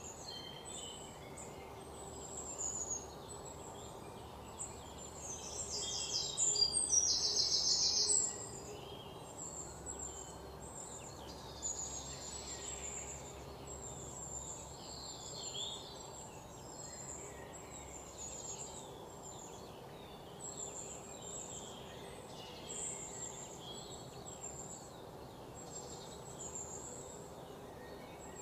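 Outdoor ambience of birds chirping, short high calls repeating, with a louder rapid trill about six to eight seconds in.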